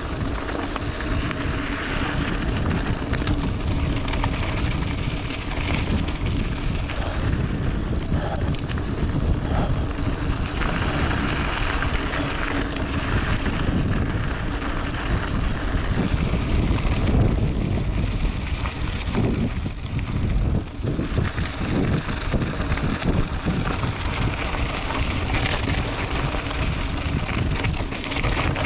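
Wind buffeting the microphone while a mountain bike rolls along a dirt and gravel fire road, with a steady low rumble of the tyres over the ground and the bike rattling.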